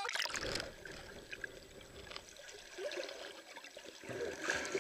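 Water splashing as the camera goes under, then muffled sloshing and gurgling water heard with the microphone submerged, with bubbly gurgles near the end.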